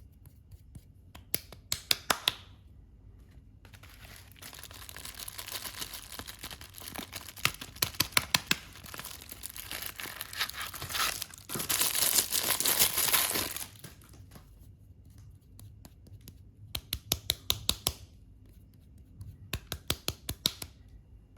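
Soap packaging being torn open and crinkled by hand: bursts of sharp crackling, and a longer tear that builds and ends in a loud rip about two-thirds of the way through, before it cuts off suddenly.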